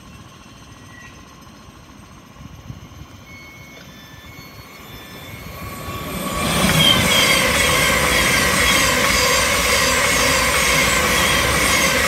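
Electric multiple-unit passenger train passing close on the line. A low background rumble gives way about six seconds in to a loud rush of wheels on rail, with a steady electric whine and short, repeated high squeals.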